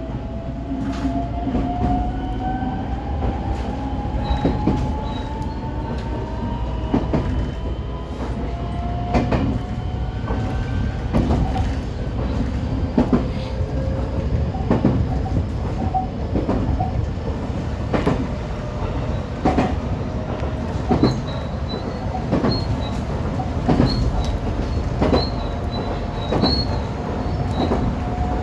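JR West 125 series electric railcar running along the line: its motor whine climbs slowly in pitch as it gains speed, over a steady rumble, with a wheel clack over a rail joint roughly every second and a half.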